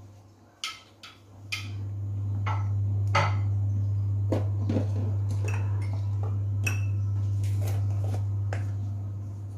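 A stainless steel pot of soto broth heating on a gas stove, with scattered ticks and pops from the pot and the bubbling liquid. Under them runs a steady low hum that swells about a second and a half in and fades near the end.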